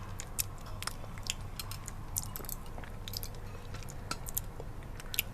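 Close-miked mouth sounds of someone eating honey: irregular sticky clicks and smacks of chewing, over a steady low hum.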